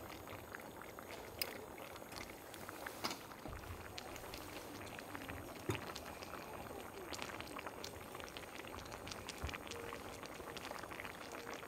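A pot of chicken, sausage and vegetable stew simmering on a camping stove, bubbling steadily with scattered small pops and a few sharper clicks.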